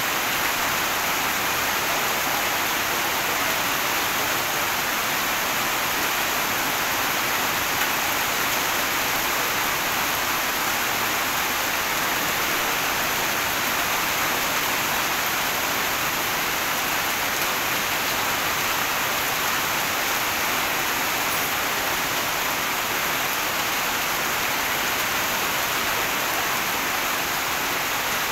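Heavy rain falling steadily onto a wet paved street, splashing in standing water. It makes an even, unbroken wash of noise.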